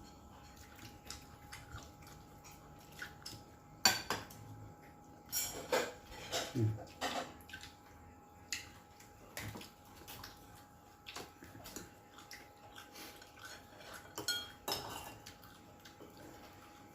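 Spoons and forks clinking and scraping against plates and bowls as people eat, in scattered irregular clicks and knocks, with a few louder clatters about 4 s, 6 s and 15 s in.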